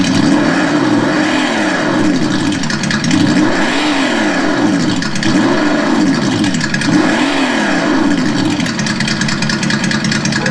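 Sense Innovations ESS-One sound module on an RC truck playing its simulated engine sound through its speaker, revving up and dropping back again and again, roughly once every one and a half seconds.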